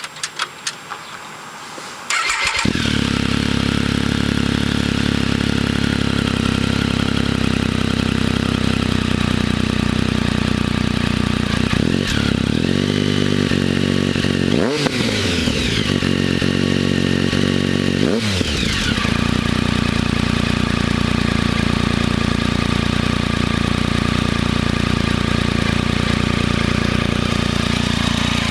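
Triumph Tiger 1050's three-cylinder engine breathing through an Arrow race slip-on exhaust. A few clicks come first, then it starts about two seconds in and settles to a steady idle. It is revved three times in the middle before dropping back to idle.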